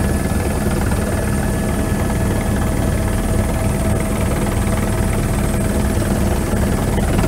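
Airbus H125 helicopter running in flight, a steady rapid rotor-blade beat under a thin high whine from its turboshaft engine.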